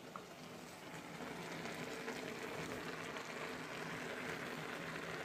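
Boiled peas and potato softly sizzling in a hot kadai as crushed boiled potato is tipped in, a steady hiss that grows a little after about a second.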